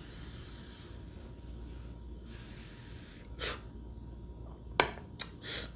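A faint hiss of breath drawn slowly through a DynaVap B vaporizer for about the first two seconds, then a short puff of breath out about three and a half seconds in. Near the end, a sharp click, a lighter click and a brief scrape as the vaporizer's tip is set into the induction heater.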